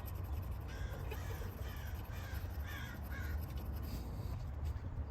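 A bird calling in a run of short, harsh calls over about three seconds, over a steady low hum.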